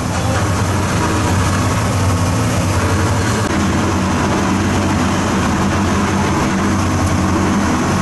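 Fishing boat's engine running steadily with a low hum and a noisy wash over it; the note shifts slightly about three and a half seconds in.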